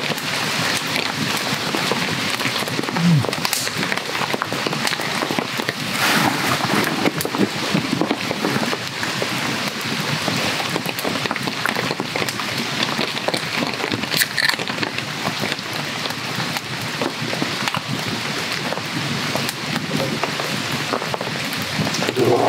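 Heavy rainy-season rain falling steadily, a dense even hiss peppered with sharp ticks and pops.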